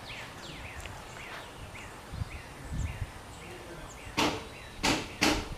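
Outdoor ambience of faint bird chirps over a low rumble of wind and background noise. About four seconds in, a quick run of loud, sharp sounds begins, about three a second.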